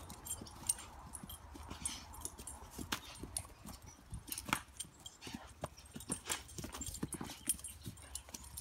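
Dalmatian puppy's paws thudding and scuffing on grass as it bounds about, making a run of irregular quick thumps and clicks.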